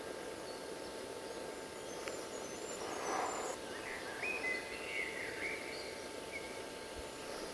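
Woodland ambience: wild birds calling and singing, busiest in the middle stretch, over a steady hiss with a faint constant whine.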